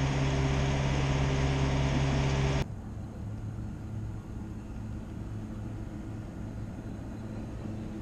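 Large delivery truck running at idle: a loud, steady low engine hum that cuts off suddenly about two and a half seconds in, leaving a much quieter low rumble.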